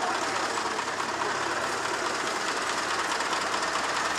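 Tractor diesel engine running steadily at a constant pitch, with a fast, even rhythm.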